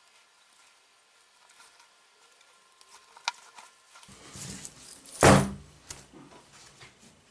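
Hands handling a chainmail glove: faint clinks of the metal rings and a sharp click about three seconds in, then louder shuffling of the mail with one loud jingle about five seconds in.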